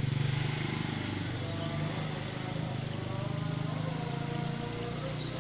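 A small engine running steadily with an even, low, fast pulsing.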